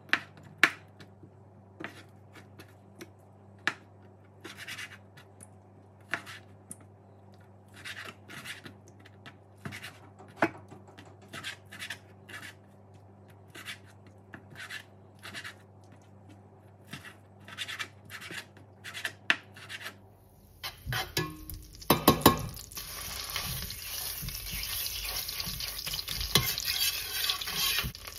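Kitchen knife cutting raw beef into cubes on a wooden cutting board: irregular sharp taps of the blade on the board over a faint steady hum. About twenty seconds in, this gives way to sizzling frying in a stainless steel pot, with a metal spoon stirring and knocking against the pot.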